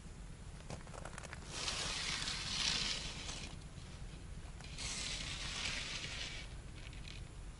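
Two long stretches of rustling and scraping as a long wooden pole is handled and raised among bare brush and crusted snow, with a few light clicks before them.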